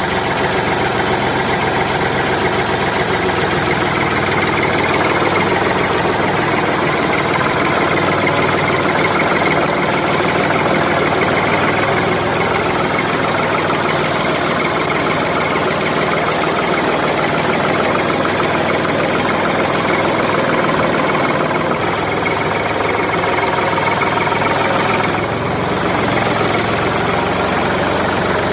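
Engine idling steadily, like a tractor engine, with a brief change in tone about 25 seconds in.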